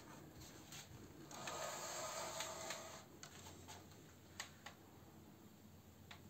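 Faint handling noise: a rustling scrape lasting about a second and a half, starting just over a second in, with a few light clicks scattered before and after.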